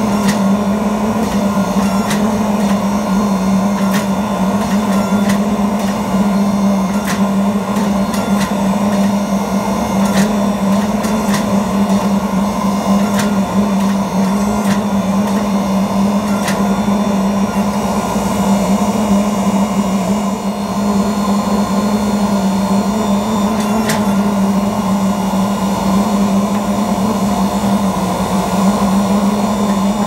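Forge press running with a steady loud hum while its dies squeeze a glowing Damascus steel billet, with scattered sharp clicks.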